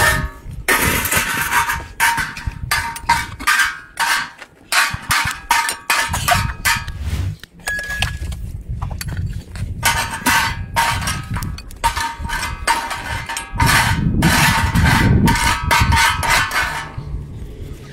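Metal spatula scraping and clinking on a wide iron griddle as grain is stirred and roasted over a fire: a quick, uneven run of scrapes and clanks, with a short pause about halfway through.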